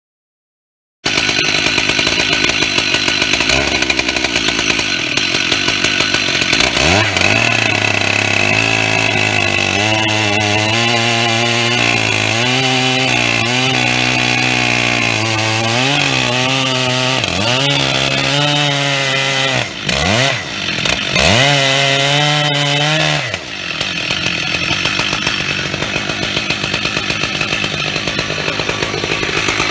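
Stihl MS 880 two-stroke chainsaw at full throttle, ripping lengthwise through an oak log in an Alaskan chainsaw mill with a 105 cm bar and 3/8 milling chain. It starts abruptly about a second in. The engine pitch repeatedly sags and recovers under the load of the cut, most of all in the middle, then holds steadier near the end.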